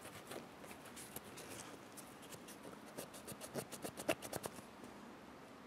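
Cloth rag rubbing and scrubbing around the trigger guard of a Smith & Wesson 360SC revolver, heard as faint, quick scratchy strokes. The strokes grow busier and louder about three to four and a half seconds in.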